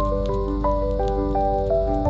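Background instrumental music: a melody of notes changing a few times a second over sustained low notes.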